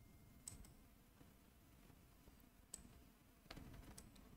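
Near silence broken by a few faint clicks of a computer mouse, a pair about half a second in, one midway and a short run of them near the end.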